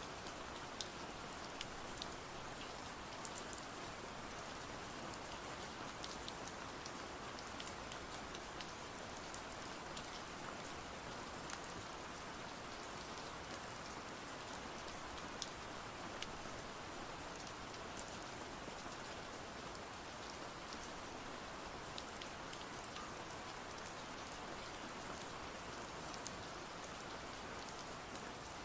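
Steady rain falling: an even hiss of rain with scattered sharp drop ticks.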